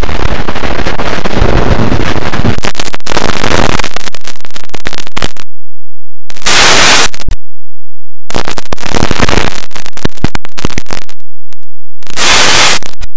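Harsh, heavily distorted and clipped noise from a cartoon soundtrack mangled by audio effects, at full loudness. It cuts out abruptly to silence several times in the second half.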